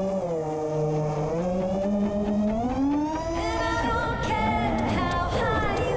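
FPV quadcopter motors whining, the pitch rising and falling with the throttle. Background music with a beat joins in about three seconds in.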